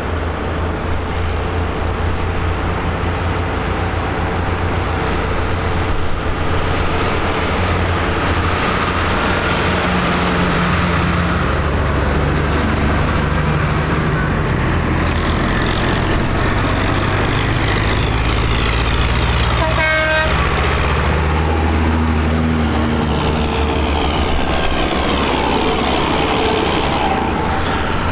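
Convoy of diesel farm tractors passing close one after another, engines running steadily. A short horn toot sounds about two-thirds of the way through.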